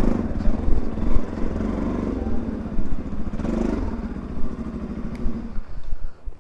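Bajaj Pulsar NS200 motorcycle engine running as the bike is ridden, swelling and easing a couple of times, then dying away near the end.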